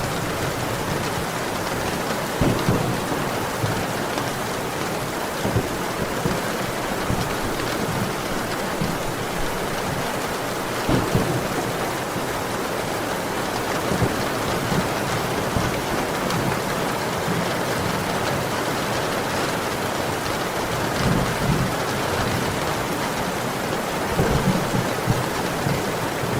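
Steady heavy rain, with brief low rumbles now and then.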